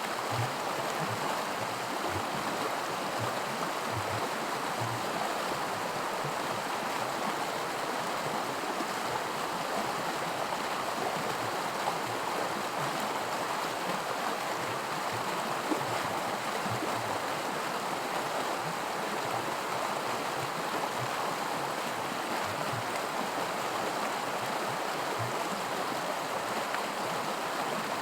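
Small creek rapids: water rushing and splashing over rocks in a steady, even rush, with faint low plops scattered through it.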